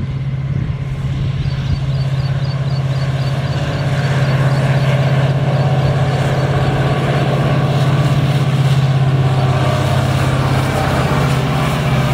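WDP-4D diesel locomotive's EMD 16-710 two-stroke V16 engine working hard as it accelerates the train. A loud, steady low drone grows louder over the first few seconds as the locomotive approaches, then holds.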